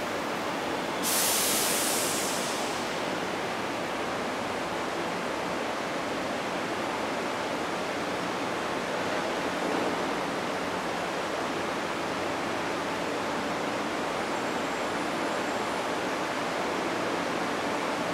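Steady hiss of railway platform ambience, with a sudden loud surge of high hiss about a second in that fades away over the next two seconds.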